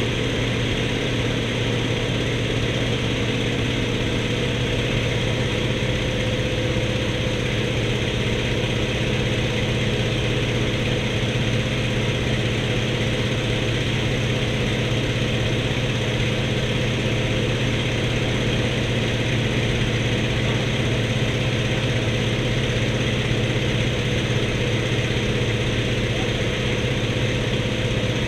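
An-2 biplane's nine-cylinder radial engine running at a steady, unchanging drone.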